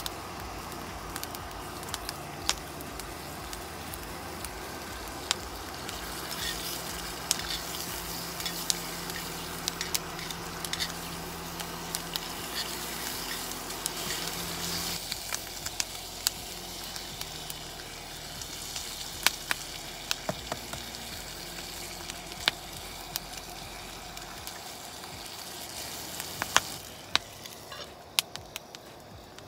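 Bacon sizzling and spattering in a small frying pan on a single-burner cartridge gas stove, with frequent sharp crackles. It goes more muffled near the end as the lid goes on the pan.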